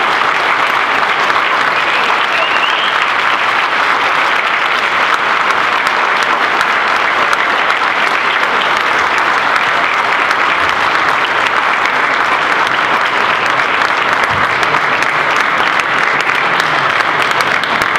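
Audience applauding steadily, a dense, sustained clapping of many hands.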